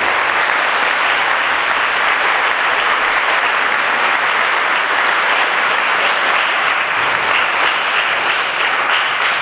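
A large audience of students applauding steadily, a dense even clapping that holds level throughout.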